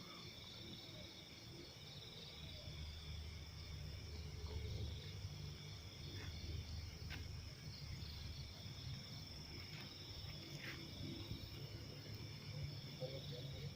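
Night chorus of crickets and other insects trilling steadily, with a low rumble underneath.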